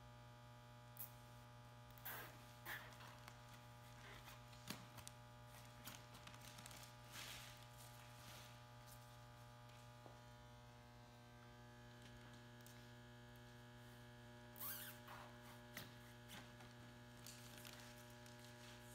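Quiet, steady electrical mains hum, with scattered faint rustles and clicks of hands fastening zip ties around a fiberglass-wrapped pillow packer lying on plastic sheeting.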